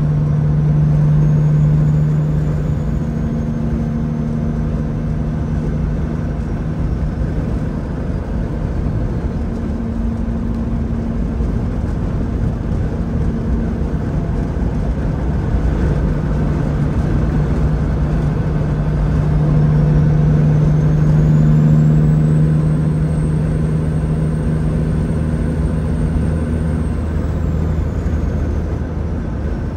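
A Peterbilt 379's CAT 3406E inline-six diesel engine running with a steady low drone that swells a little twice. A faint high whistle rises and then falls about two-thirds of the way through.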